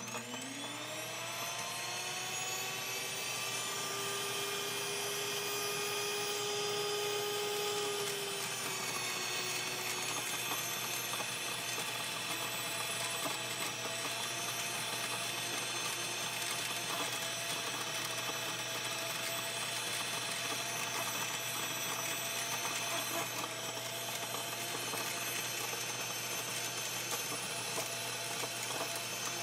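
NutriMill electric grain mill running and grinding red popcorn kernels into cornmeal, a steady motor whine with several high tones. The pitch rises in the first couple of seconds as the motor spins up, then holds.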